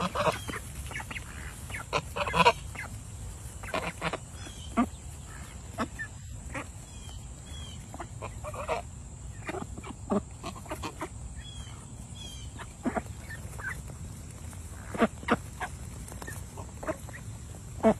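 Domestic ducks and geese calling: short quacks and honks scattered irregularly, with a few louder calls near the end.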